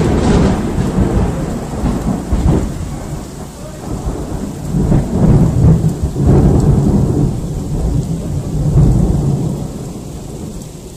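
Loud thunder rolling over steady rain, swelling in several waves of deep rumble and fading toward the end.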